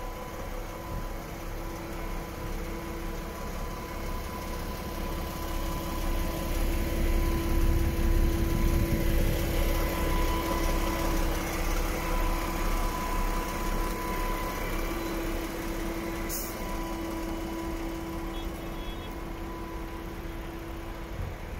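DAF XF 510 tractor unit's 12.9-litre straight-six diesel idling steadily, louder for a few seconds midway. A single sharp click comes about three-quarters of the way through.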